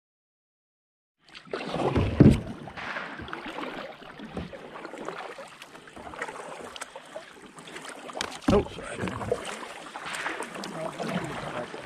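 Kayak being paddled, starting about a second in: paddle strokes dipping and splashing in the water, with two louder thumps along the way.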